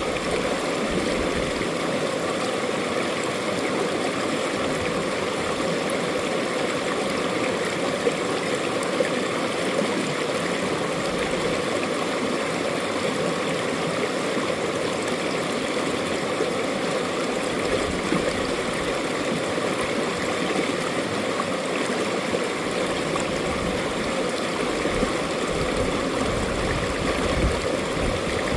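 Mountain valley stream flowing over rocks: a steady, even rush of water with small gurgles.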